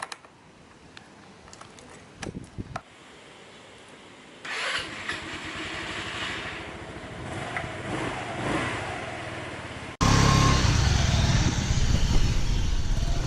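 Motor scooter engine starting and running, then, after a sudden cut about ten seconds in, much louder riding noise.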